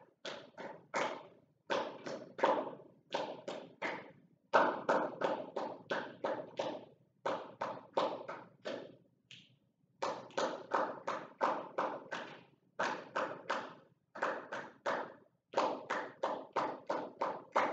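A small group of people clapping a practice rhythm together in runs of quick claps, about four or five a second, broken by short pauses. They clap without counting aloud.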